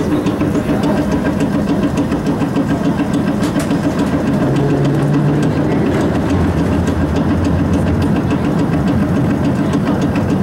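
Vintage wooden streetcar heard from inside while it runs, a steady rumble and rattle of the car body, wheels and motors on the rails. A deeper hum joins in for a couple of seconds past the middle.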